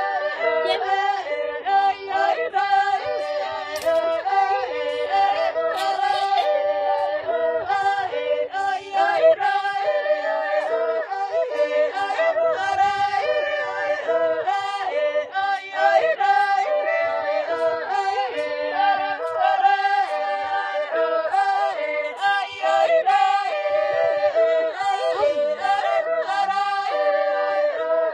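Unaccompanied singing: voices hold notes and step from one pitch to the next, with no instruments under them.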